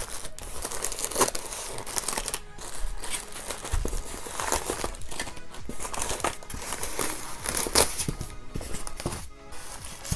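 Plastic packaging crinkling and rustling in irregular bursts as bagged speaker accessories are handled.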